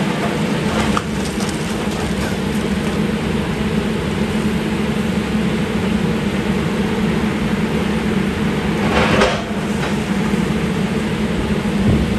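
Volvo demolition excavator's diesel engine running steadily while its grapple works through the wrecked building. A brief crash of breaking and falling debris about nine seconds in.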